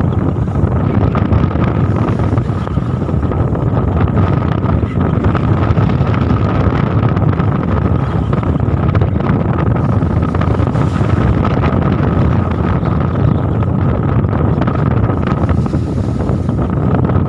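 A squid fishing boat's engine running steadily, a continuous low rumble with a thin steady whine above it, while wind buffets the microphone.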